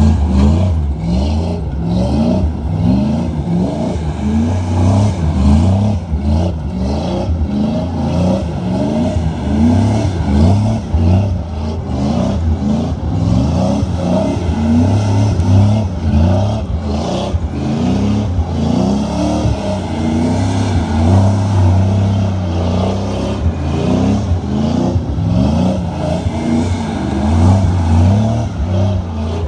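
Car engine running, revved up and down at times, with a steady low rumble.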